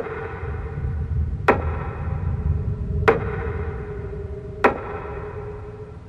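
Four sharp strikes about a second and a half apart, each one ringing on in a steady tone that fades slowly, over a low steady rumble.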